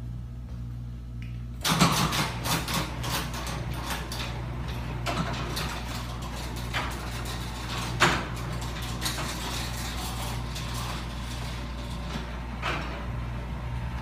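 Sectional impact-glass garage door with aluminium-framed panels being lowered: a steady low hum, then from about two seconds in the door moves with continuous rattling and clattering and several sharp clunks, the loudest about eight seconds in.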